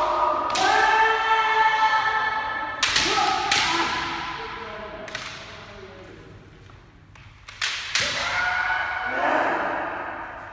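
Kendo sparring: long held kiai shouts, and sharp cracks of bamboo shinai striking armour along with the thud of stamping feet, about half a dozen in all.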